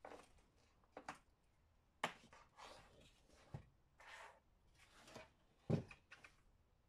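Faint, scattered handling noises on a workbench: short clicks and rustles of power-supply cables and the aluminium rig frame being moved, with one louder knock near the end.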